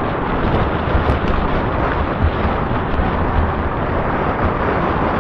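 Wind rushing over the microphone and the fat tyres rolling on asphalt as the e-bike moves along. A steady rushing noise with uneven low buffeting rumbles.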